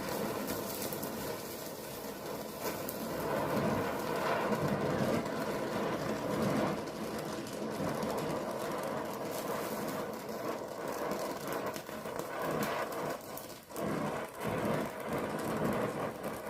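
Welding on galvanised steel: a steady, dense crackle of the arc that breaks off briefly a few times near the end.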